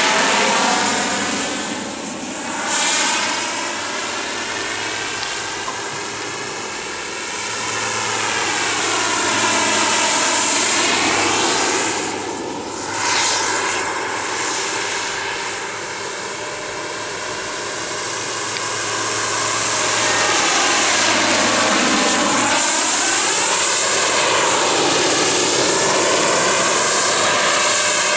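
Hughes 500 helicopter flying past in repeated passes. A steady high whine of engine and rotors swells and falls away as it comes close, loudest about half a second in, near three seconds and near thirteen seconds, and stays loud through the last third.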